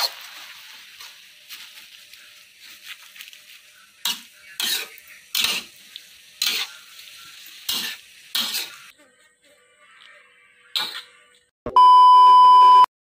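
Ensabi greens sizzling in a wok while a metal spatula scrapes and tosses them in about seven sharp strokes. Near the end comes a loud steady electronic beep lasting about a second, a TV colour-bar test tone.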